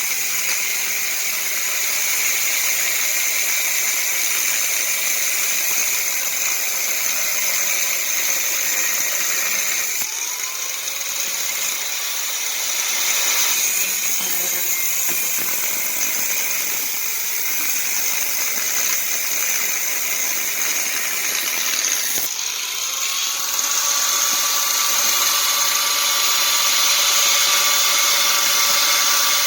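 Electric power tool working the steel axle: a steady high hissing grind with a motor whine. It restarts and spins up about ten seconds in and again a little past twenty seconds.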